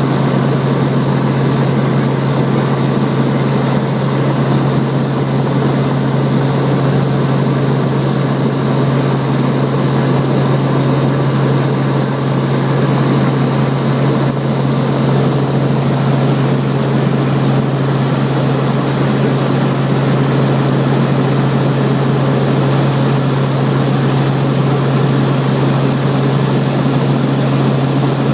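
Helicopter in flight: a steady drone of engine and rotor, with a strong low hum held at one pitch throughout.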